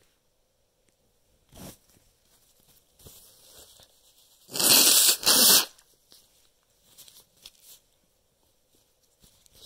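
A person blowing their nose hard, a loud double blast about five seconds in. A shorter, fainter burst comes earlier.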